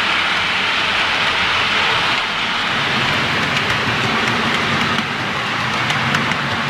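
OO-gauge model trains running on the layout: a steady rolling rumble and hiss of wheels and motors on the track, with light clicking over the rail joints from about three seconds in.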